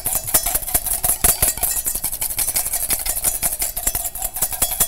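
Wire whisk beating a creamy dressing in a stainless steel bowl, the wires clicking and scraping against the metal in fast, even strokes while oil is whisked in to emulsify it.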